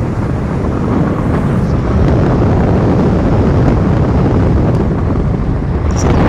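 Wind buffeting the microphone over a steady low road rumble, as heard from a moving vehicle.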